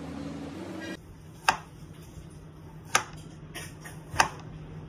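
Chef's knife chopping through a carrot onto a plastic cutting board: three sharp chops about a second and a half apart, starting about a second in.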